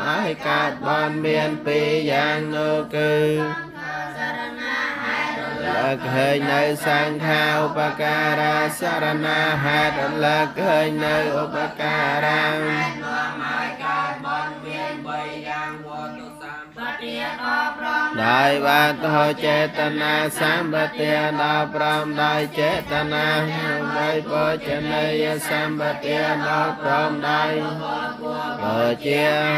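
Buddhist chanting: voices reciting on a steady drone, with two brief lulls, about four seconds in and again near 17 seconds.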